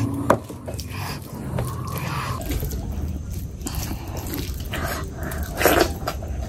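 Wet, dripping sounds of curry gravy tipped from a small plate onto rice, with a sharp click near the start as the plate is set down. Then a hand squishes and mixes the wet rice and gravy, and near the end comes a loud wet eating sound as a handful goes into the mouth.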